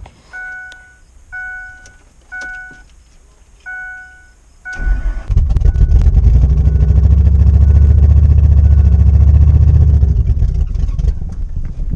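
A Ford F-150's dashboard warning chime sounds about once a second with the door open. About five seconds in, the truck's engine starts and runs loudly, its catalytic converters cut out.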